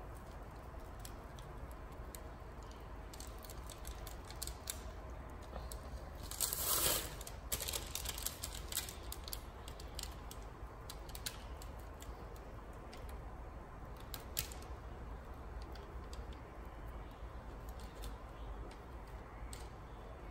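Light, irregular tapping of fingers on the rim of a small wire-mesh sieve, shaking icing sugar through it, with a brief louder rustle about six and a half seconds in.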